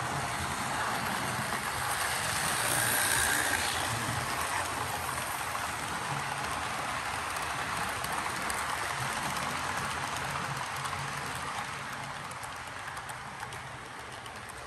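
Model freight train rolling past on its track: a steady rattling hum of wheels and motor with light clicks. It is loudest about three seconds in and fades gradually near the end as the last cars go by.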